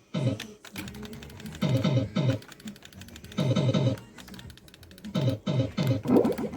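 Fruit machine running: rapid electronic clicking throughout, with several short bursts of falling bleeping tones.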